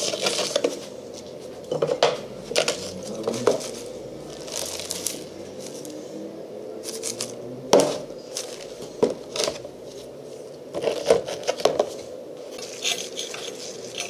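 Rusty steel hook clip handled on a hard surface: scattered metallic clinks and short rattles, the loudest a sharp clink just before halfway.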